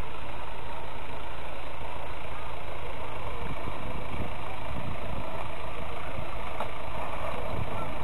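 Toyota off-road 4x4's engine running steadily at low revs as it crawls up a steep dirt bank.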